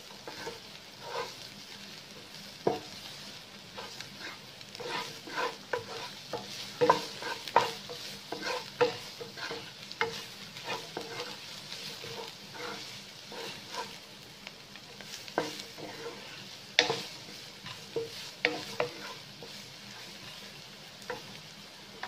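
Chopped onions sizzling in oil in a stone-coated wok while a wooden spatula stirs them, scraping and knocking against the pan at an irregular pace over a steady sizzle. A few knocks stand out sharper, the loudest about 17 seconds in.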